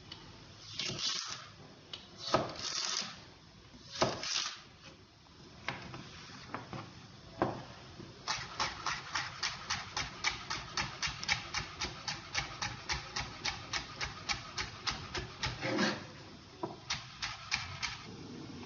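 Chef's knife cutting celery stalks on a wooden cutting board: a few slower, scraping slicing strokes at first, then a fast, even run of chops, about four a second, hitting the board for several seconds.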